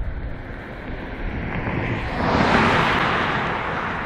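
Boeing 787-9 jet engines at takeoff power on the runway: a broad roar that swells about two seconds in and eases off near the end, over steady wind buffeting on the microphone.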